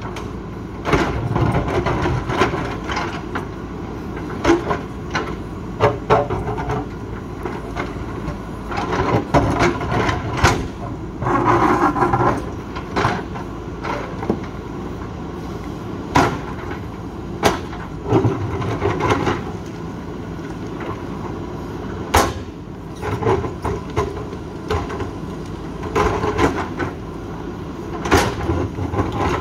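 JCB 3DX backhoe loader's diesel engine running steadily under load. Irregular sharp knocks and clanks come from the steel bucket striking and scraping rock, with rougher scraping spells every several seconds.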